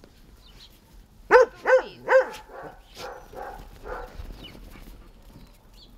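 A dog barks three times in quick succession, each bark dropping in pitch, then gives softer, quieter barks for a couple of seconds.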